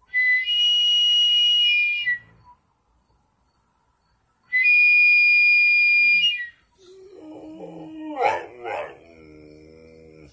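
Two long, steady, high-pitched whistle-like tones, each about two seconds, a couple of seconds apart. After the second, a dog howls in answer, rising in pitch, with a brief higher yelp partway through.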